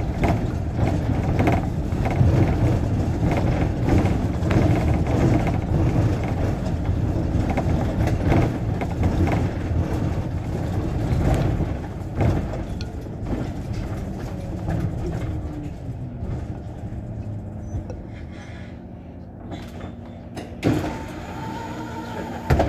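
MAN articulated city bus running, heard from the driver's cab. The engine and road rumble ease off about halfway through as the bus slows, then it idles with a steady hum once stopped. Two sharp knocks come near the end.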